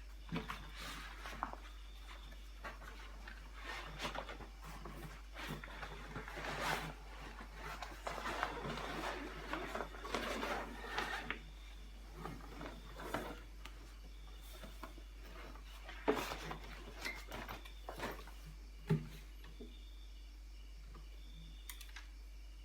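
Packaging being handled and opened: rustling and crinkling with scattered knocks and clicks, busiest in the middle and thinning out near the end.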